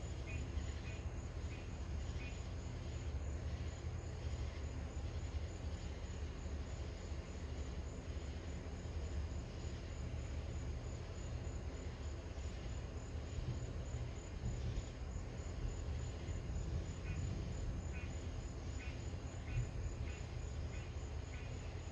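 Crickets chirping in short repeated chirps, about two a second, clearest at the start and again in the last few seconds, over a steady low rumble.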